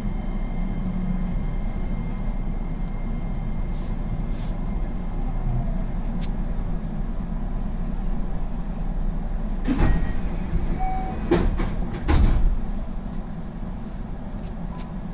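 Interior of a JR West 225-5100 series electric train: a steady low cabin hum, with a few sharp knocks and thumps about ten to twelve seconds in.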